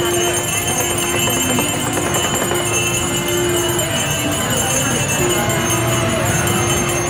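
Hindu festival procession music with bells jingling continuously and a long held note that breaks off about four seconds in and returns about a second later.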